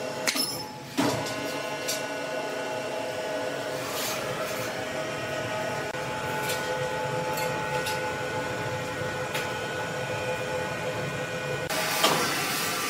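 Electric overhead crane hoist running with a steady whine as it lifts a heavy timber slab on wire rope, with a few sharp metallic clicks.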